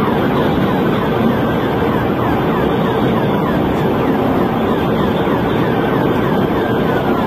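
Police cruiser in pursuit at highway speed: loud, steady road and engine noise, with a siren's quick repeating sweeps faintly over it.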